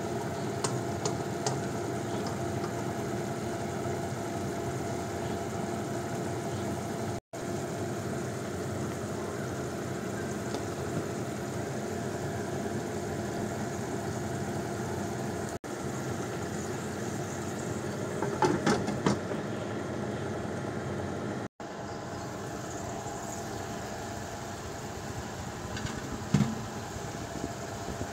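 Yardlong beans simmering in sauce in a wok on a gas stove, under a steady mechanical hum, broken by three brief dropouts. A quick run of spatula clicks and scrapes against the wok comes about two-thirds through, and a single knock near the end.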